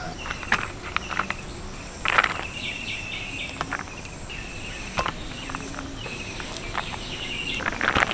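Steel spoon scraping and clinking against a metal pan as cooked rice is scooped out and served, in scattered sharp clicks with the loudest scrape about two seconds in. Insects keep up a thin, steady high trill in the background.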